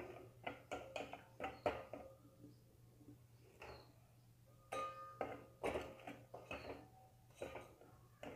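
Steel spoon clinking and scraping against a stainless steel pan while turning jalebis in sugar syrup: light taps with a short metallic ring, with a lull of a couple of seconds in the middle.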